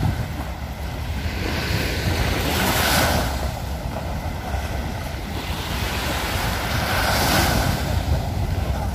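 Small waves breaking and washing up the sandy shore, swelling twice, about three and seven seconds in, over a steady low rumble of wind on the microphone.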